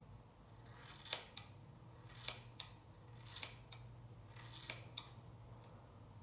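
Faint scissors snipping: a few short, soft snips about a second apart over a low hum.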